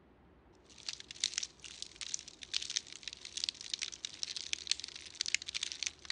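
Nibbling and gnawing sound effect: a dense, irregular run of small crackling crunches, starting about half a second in.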